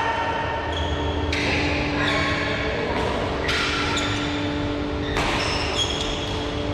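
Badminton rackets striking a shuttlecock in a doubles rally: sharp smacks every second or two that echo in a large hall, with short squeaks from shoes on the court floor between them.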